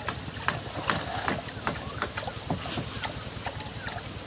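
A small engine running steadily, with many irregular sharp clicks and knocks over it.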